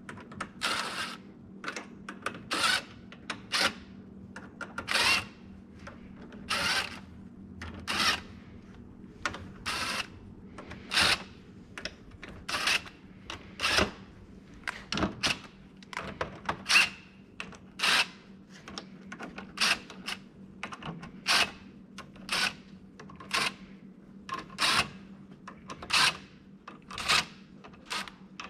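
Cordless DeWalt drill-driver running in short bursts, roughly once a second, driving the screws that fasten a steel gear rack to an aluminium back plate.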